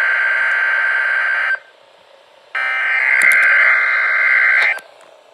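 NOAA Weather Radio SAME digital header tones for a Required Weekly Test, heard through a radio speaker: buzzy data bursts about two seconds long. One burst ends about a second and a half in, and after a pause of about a second a second burst plays, stopping near the end.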